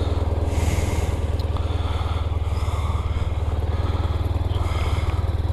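Motorcycle engine idling steadily, an even low pulsing hum.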